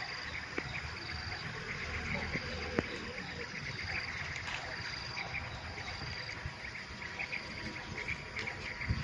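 Insects chirping steadily in the background, a dense run of short repeated chirps with a thin high tone that comes and goes. A few faint clicks and rustles come from leaves being picked by hand.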